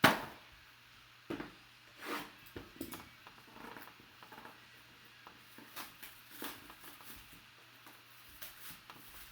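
A sharp knock right at the start, then scattered soft rustles and light clicks of a trading-card box and its cards being opened and handled.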